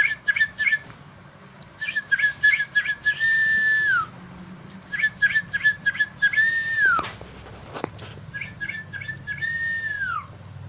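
A high whistled phrase repeated three times: a quick run of short chirps, a held note, then a falling slide. A single sharp click comes between the second and third phrases.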